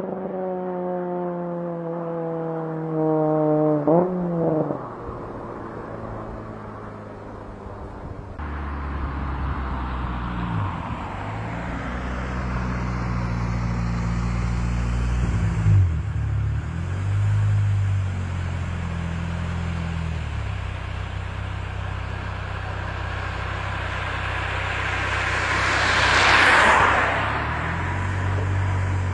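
Honda Civic EK's swapped K20 inline-four engine: its pitch falls steadily as the revs drop after a pull, with a short blip of revs about four seconds in. Then the engine drones at low revs, rising and falling a little in pitch. About 26 seconds in, a rushing sound swells and fades as a car passes close by.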